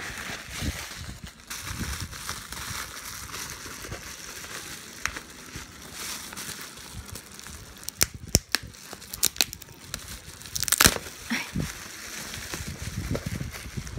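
Plastic bubble wrap crinkling and rustling as it is handled and pulled off a cardboard box. A quick run of sharp snaps comes a little over halfway through, and a louder crackling burst follows about three seconds before the end.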